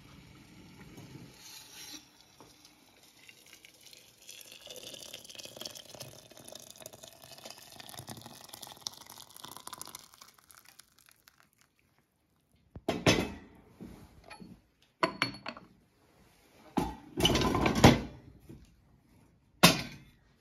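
Boiling water poured from a stainless steel kettle into a ceramic teapot, a steady filling sound for several seconds. Then come four loud clunks and clanks as the range cooker's insulated hotplate lid is closed and the kettle is set down on it.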